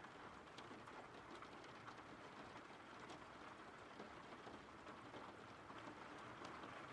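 Faint steady rain: an even hiss with scattered drop ticks.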